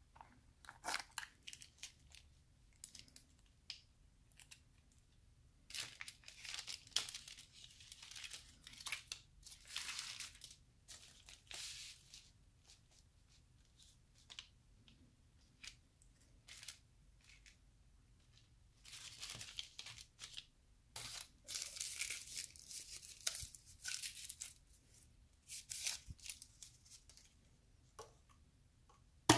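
Foil and plastic peel-off lids being torn from small dipping-sauce cups, with a paper straw wrapper torn open. Bursts of tearing and crinkling come in clusters with quiet pauses between them.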